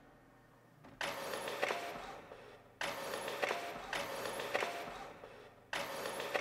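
Office printer printing, three pages going through one after another, about a second in, near three seconds and near six seconds; each starts suddenly with clicks and fades away.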